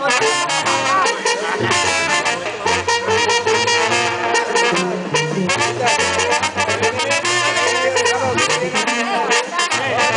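Live Mexican banda playing: trumpets and trombones carry the tune over a low bass line that steps from note to note, with drum and cymbal hits keeping a steady beat.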